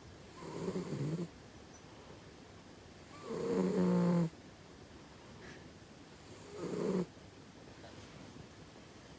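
A cat snoring heartily: three snores about three seconds apart, the middle one the longest and loudest, the last one shorter.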